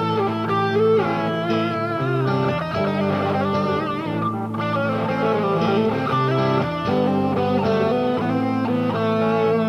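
Greco JJ-75 electric guitar playing held chords with wavering, bending notes above them.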